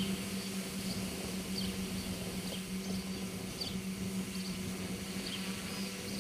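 Electric motors and propellers of a multirotor tricopter in flight, humming at one steady pitch. Short high chirps sound over the hum about once a second.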